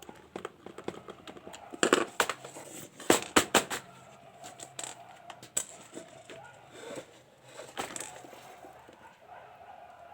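Plastic housing of an electric mosquito-swatter bat being handled and pried open: a series of sharp clicks, snaps and knocks, loudest in a cluster about two to three and a half seconds in.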